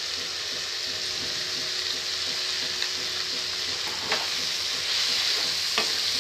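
Onions, capsicum and tomatoes with ground spices sizzling in oil in a non-stick kadai while a wooden spatula stirs them. The spatula knocks against the pan twice in the second half, and the sizzle grows a little louder.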